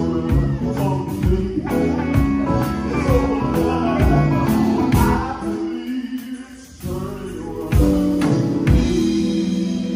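Live gospel quartet music: male singers on microphones over a live band with drums and keyboard. The music drops out briefly about six seconds in, then comes back as a long held chord.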